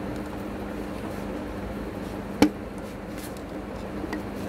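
Screwdriver on the set screws of a Juki sewing machine's rotary hook as they are tightened. There is one sharp metallic click about two and a half seconds in and a few faint ticks near the end, over a steady low hum.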